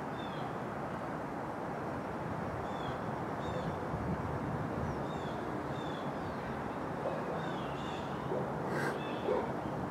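Outdoor background ambience: a steady low rushing noise with small birds chirping, short high down-slurred chirps repeating about once or twice a second.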